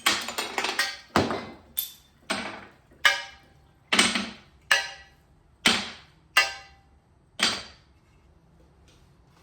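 Repeated hammer blows, about a dozen sharp strikes at uneven gaps of half a second to a second, each ringing off briefly; they stop about three quarters of the way through.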